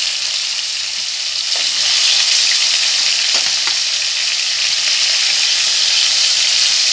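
Pieces of turmeric-and-salt-rubbed bhola fish sizzling steadily as they fry in hot oil in a kadai, with a few small pops.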